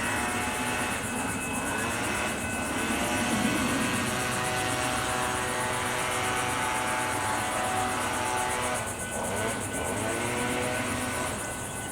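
Freight train rolling past at close range, a steady rumble with several held high-pitched tones over it and sweeps in pitch that recur as the cars go by.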